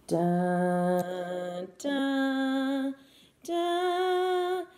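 A woman singing three long held notes, each higher than the last, with short breaks between them, like a sung fanfare.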